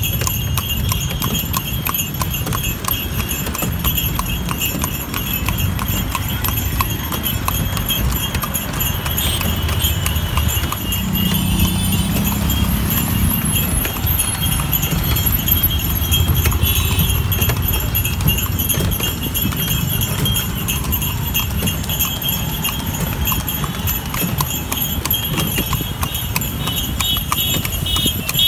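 A cart horse's hooves clip-clopping at a steady pace on an asphalt city road as it pulls the cart, amid street traffic, with a louder low hum of a passing vehicle about halfway through.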